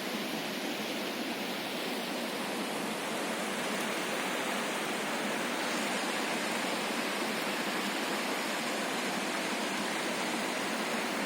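Floodwater rushing down a swollen stream channel in a steady, unbroken roar of water.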